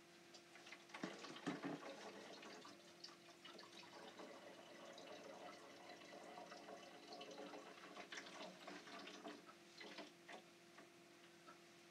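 Near silence: faint room tone with a steady low hum and scattered soft clicks, and a soft rushing noise through the middle.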